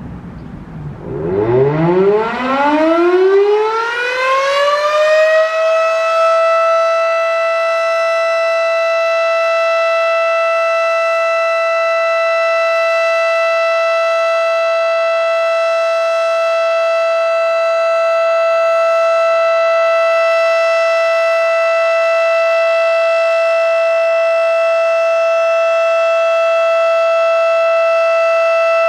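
Federal Signal Model 5 electromechanical outdoor warning siren winding up from about a second in, its pitch rising steadily for about five seconds, then holding one steady, loud tone at full speed for the rest, sounded for its monthly test.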